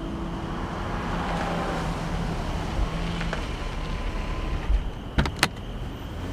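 A car driving past, swelling and then fading with a falling pitch, over a faint held note. Two sharp knocks come a little after five seconds in.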